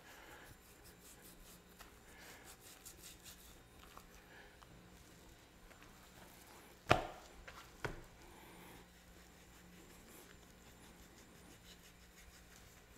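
Knife trimming fat off a raw beef brisket on a plastic cutting board: faint slicing and rubbing of the meat, with two sharp knocks about a second apart near the middle.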